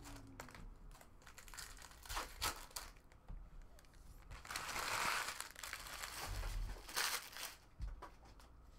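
Foil wrapper of a trading-card pack crinkling and tearing as it is opened, among light handling of the cards. The loudest crinkling comes about halfway through, and a shorter burst comes near the end.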